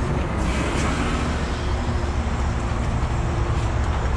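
Heavy-duty rotator tow truck's engine running steadily, a low even drone.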